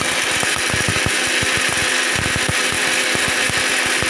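Electric mixer grinder running at full speed, dry-grinding dried red chillies and coriander seeds to a powder in its steel jar, with a steady motor sound and a constant rattle of the hard pieces against the jar.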